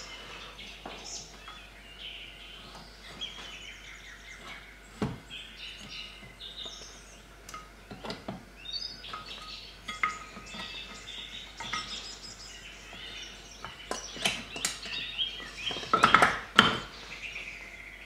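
Scattered metal clicks, knocks and scrapes from a Yamaha 4 hp four-stroke outboard's aluminium lower gearcase being worked up onto the midsection while its drive shaft and shift rod are lined up, with a cluster of louder clunks near the end. Birds chirp in the background.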